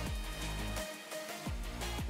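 Background music with held notes over a low bass line.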